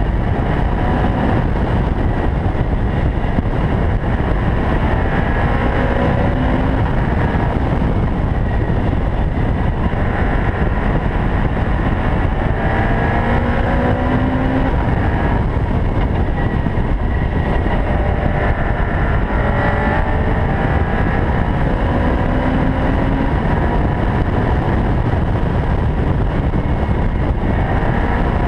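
Caterham R500 lightweight sports car driven hard on track: the engine note climbs again and again as it accelerates, heard over a dense, steady rush of noise.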